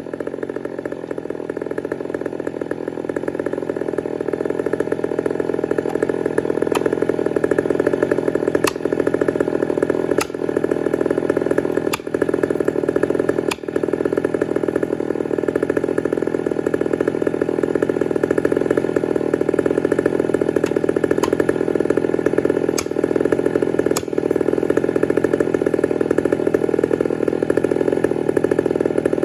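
Two-stroke gasoline chainsaw running steadily at high speed while cutting into a large tree, with sharp ticks now and then through the middle.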